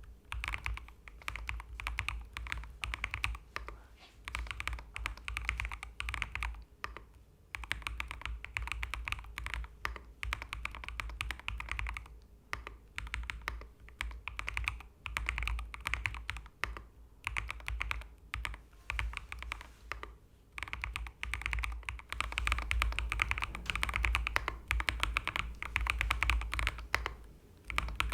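Continuous fast typing on a gasket-mounted mechanical keyboard with JWK Klein switches: dense keystroke clacks, broken by a few brief pauses.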